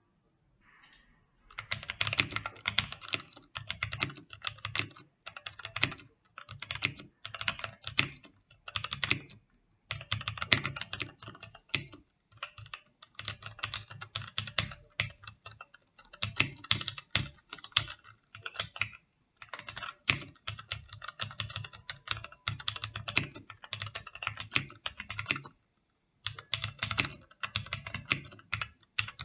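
Typing on a MAGEGEE MK-Box 65% wired mechanical keyboard with red linear switches and foam in the bottom of the case: fast runs of keystrokes broken by short pauses.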